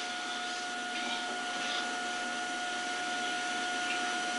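Steady background hiss with a constant high whine running through it, and a few faint paper crinkles as a greeting card is handled and read.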